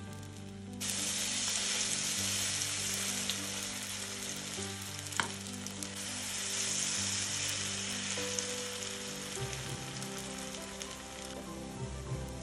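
Grated-potato pancake batter sizzling and frying in hot oil in a frying pan, the sizzle jumping louder about a second in as another spoonful of batter goes into the oil. A single sharp metal clink about five seconds in.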